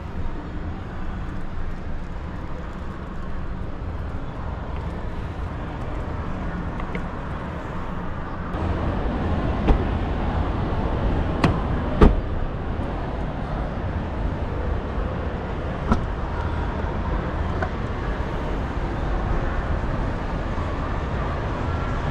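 Steady background noise of a busy motor-show hall, with a few sharp knocks near the middle.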